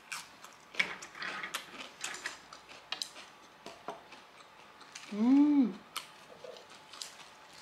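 Close-miked chewing of a lettuce wrap filled with spicy instant noodles: irregular crisp crunches and wet mouth clicks. About five seconds in there is one short hum that rises then falls in pitch.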